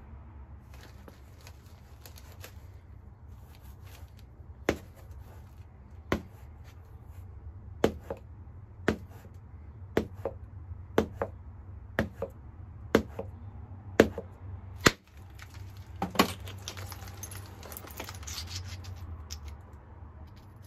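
Knapping strikes on a hornstone biface: about a dozen sharp knocks, roughly one a second and sometimes in quick pairs, as flakes are struck off its edge by percussion. Faint scratching comes before the strikes, and a rustling crackle of stone follows them.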